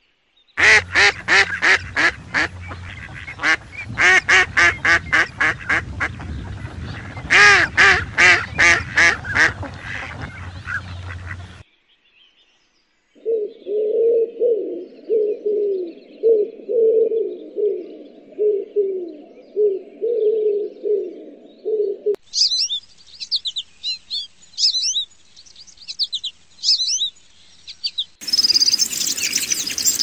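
Mallard ducks quacking in rapid runs for the first dozen seconds; then, after a brief pause, rock pigeons cooing in low repeated phrases. After that come high, quick chirps of small birds, and near the end barn swallows twittering.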